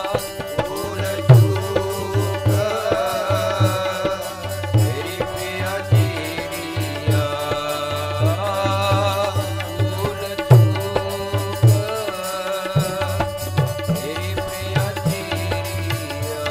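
Sikh kirtan music: a harmonium holding steady notes under a wavering melody, with tabla playing a steady rhythm of deep bass strokes.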